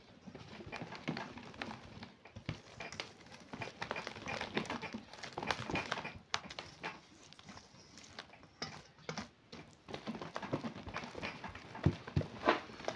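Red silicone-coated whisk beating a thick batter in a stainless steel bowl: a quick, irregular run of taps and scrapes against the bowl, several a second, as extra flour is whisked in.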